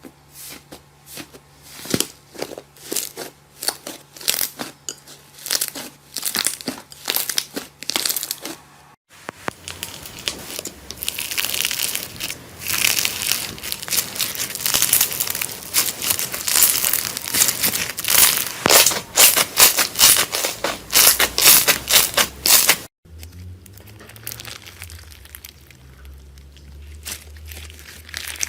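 Slime being worked by hand, giving a run of sharp crackling clicks. After a sudden cut it becomes a denser, louder crinkling crackle, then after another cut a quieter stretch of soft crackles.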